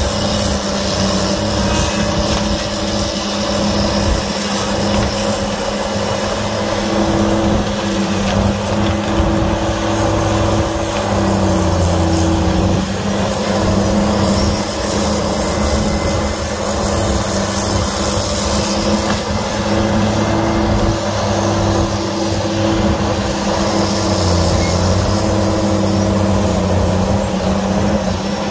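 Diesel engine of a piece of heavy equipment running steadily under work. Its engine note dips briefly a couple of times as the load changes.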